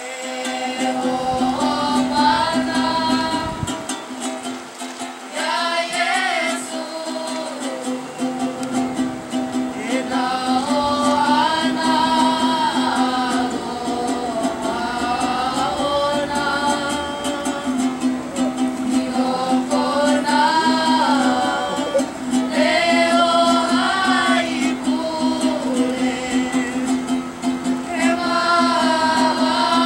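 Ukulele strummed as accompaniment to a group of men's and girls' voices singing a Hawaiian song together, phrase after phrase. The voices come in about two seconds in, after a moment of ukulele alone.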